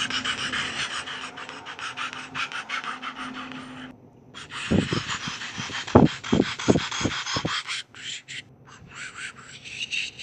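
Helicopter rotor chopping fast and evenly, about eight beats a second over a steady low hum. It breaks off briefly about four seconds in and resumes, with a few short low thumps under it in the second half.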